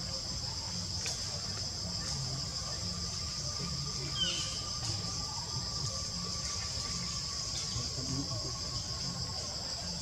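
Steady, high-pitched drone of insects, with a brief short chirp about four seconds in.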